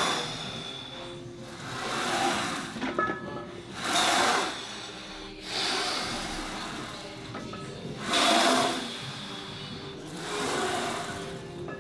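A set of reps on a plate-loaded 45-degree leg press, about five of them at a steady pace of one every two seconds or so. Each rep brings a swell of effortful breathing and the noise of the sled moving on its rails.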